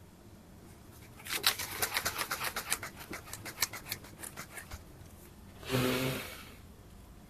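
A small coconut-shell fire being fanned by hand, a rapid run of whooshing strokes several a second for about three and a half seconds, then one strong breath blown onto the glowing embers to coax them into flame.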